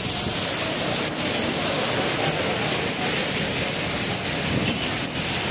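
Heavy rain falling on a street: a steady hiss, with two brief clicks, about a second in and near the end.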